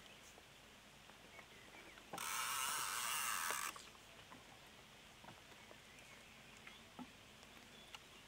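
Fishing reel's drag slipping as a hooked catfish pulls line near the boat: one even hiss about two seconds in, lasting about a second and a half and stopping sharply, with a few faint clicks of handling around it.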